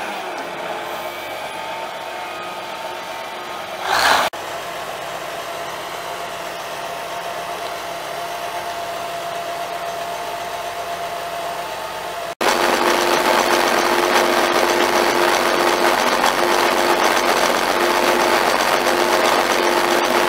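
Cummins NTA-855 six-cylinder turbo diesel of a Case IH 9370 Steiger tractor running steadily, with a short burst of hiss about four seconds in. After a cut about twelve seconds in the engine is louder, with a steady hum.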